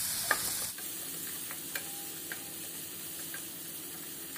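Chopped onion, green chilli and tomato sizzling in hot oil in a steel kadhai, stirred with a spatula that scrapes and taps the pan now and then. The sizzle turns abruptly quieter under a second in.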